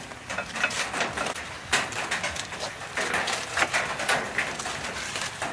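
Aluminium foil crinkling and tearing in many short, irregular crackles as it is cut and pulled open from a roast with a knife and tongs.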